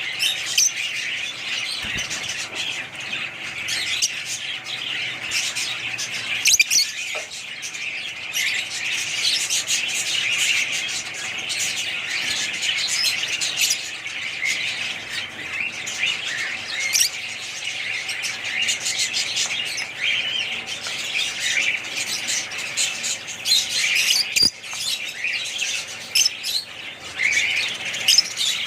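Many small birds chirping and squawking together in a dense, unbroken chatter, like a flock of pet birds such as budgies.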